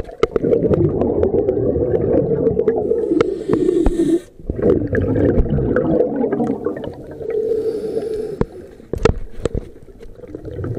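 Scuba diver breathing through a regulator underwater: exhaled air bubbles up past the camera in loud, crackling gurgles, broken twice by a fainter hiss of the regulator on the in-breath.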